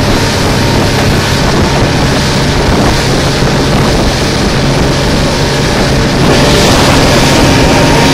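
Small motorboat under way: its engine runs steadily under a loud rush of wind on the microphone and water along the hull. The wind and water noise gets louder about six seconds in.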